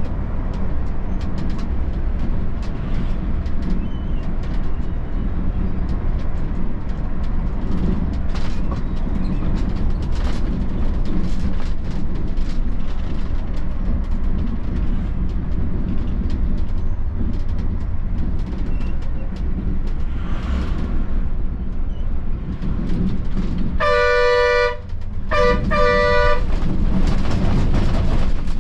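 Volvo B11R bus running steadily along the road, its engine and road noise making a constant low rumble. Near the end a vehicle horn honks twice, about a second each, the loudest sound.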